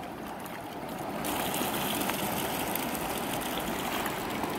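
Shallow river flowing, a steady rush of water that grows louder and brighter about a second in.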